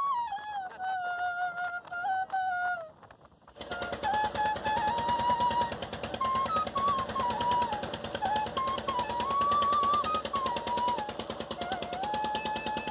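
A gliding melody, then an abrupt switch about three and a half seconds in to a boat engine running in a rapid, even putter, with a wavering melody line over it.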